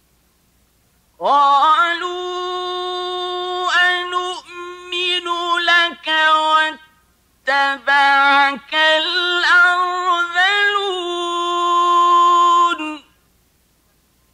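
A man's voice reciting the Quran in a high, drawn-out melodic chant, holding long ornamented notes. It comes in about a second in, breaks off briefly near the middle, and stops about a second before the end.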